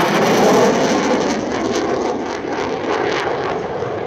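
Jet noise from a CF-18 Hornet's twin General Electric F404 engines as the fighter passes and climbs away. The loud, rushing noise eases slowly, with a rough crackle through the middle.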